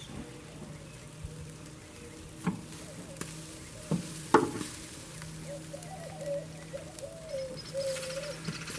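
Metal tongs clacking a few times against the grill grate and T-bone steaks as they are moved, over the faint sizzle of the steaks cooking. From about halfway there is a low, wavering call.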